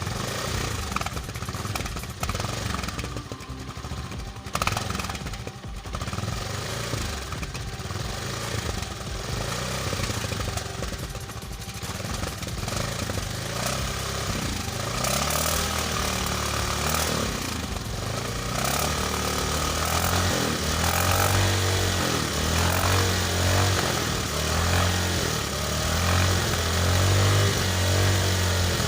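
Motorcycle engine running, heard at its exhaust silencer. Through the second half the low exhaust note grows louder and swells in repeated surges.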